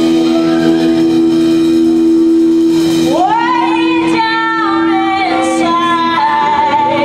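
Live rock band with a woman singing lead: over one long held instrument note, her voice slides up about three seconds in and holds long, wailing notes.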